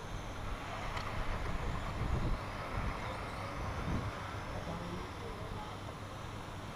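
Electric radio-controlled racing trucks whining faintly as they pass, the pitch rising and falling, over a steady low rumble.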